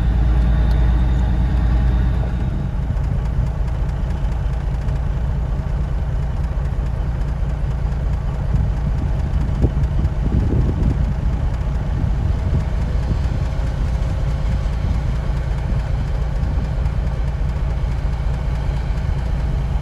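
Grain truck's engine running steadily, a low rumble that eases slightly about two seconds in.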